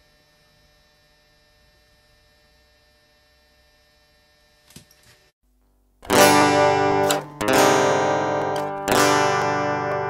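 Near silence with a faint steady hum, then about six seconds in, loud guitar chords strummed in three short phrases with brief breaks between them.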